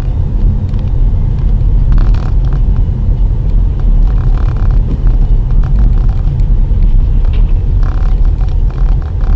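Steady low rumble of a car driving on the road, heard from inside the cabin by a dashcam: engine and tyre noise.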